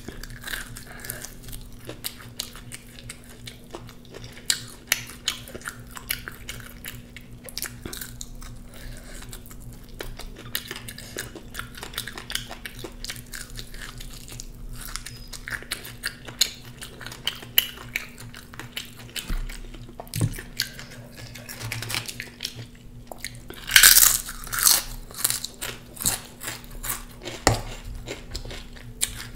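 Close-miked eating: a person biting and chewing crunchy food, with many crisp crunches and a louder run of crunching about 24 seconds in.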